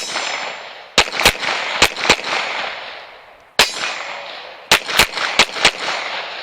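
Pistol fired about ten times in a string of quick pairs, double-taps, with single shots between. Each shot leaves a long echo that dies away.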